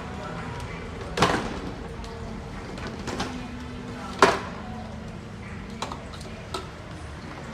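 Several sharp knocks, the loudest about a second in and just after four seconds, with smaller taps later, over a steady low hum.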